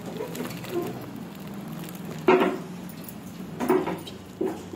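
Steel pot knocking against a plastic strainer and steel bowl while curdled milk is poured through to drain off the whey for paneer. The loudest knock comes a little over two seconds in, with smaller ones near the end.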